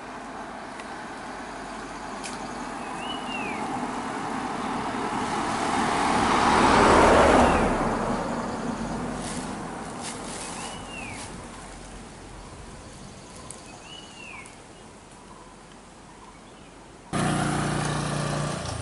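A road vehicle passes on the road, its noise building to a peak about seven seconds in and then fading away, while a bird repeats a short arching call every few seconds. Near the end the sound switches abruptly to a louder steady low noise.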